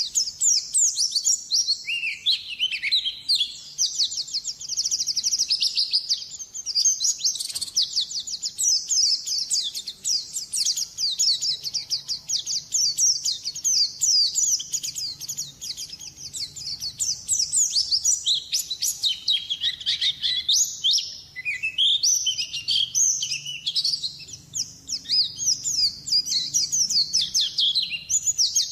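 White-eye (pleci) singing a long, fast, almost unbroken twittering song of short high notes, dipping lower in pitch a couple of times.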